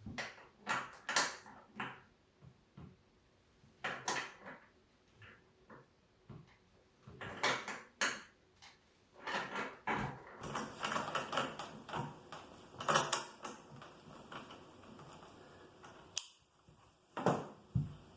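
Hand tools working on a bicycle crank: a spanner and the crank-arm puller tool clinking and clicking against metal in irregular knocks, coming thicker and faster about halfway through.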